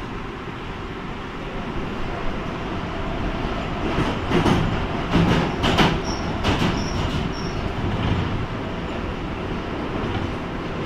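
A London Underground Northern line 1995 Stock tube train running through a tunnel, heard from inside the car as a steady rumble. From about four seconds in, a burst of rattling clatter rises for a few seconds, with three or four brief high wheel squeals among it.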